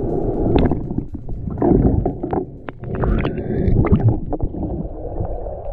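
Seawater sloshing and gurgling around a camera held at and below the surface, with scattered sharp knocks as a clam rake works the sandy bottom and a clam is lifted out of the water.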